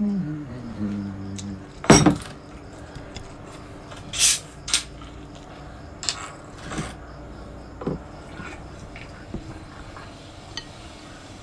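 Tableware clinking while eating, with a sharp loud knock about two seconds in. Several short hisses follow, typical of the cap of a plastic cola bottle being twisted open, then light clinks near the end.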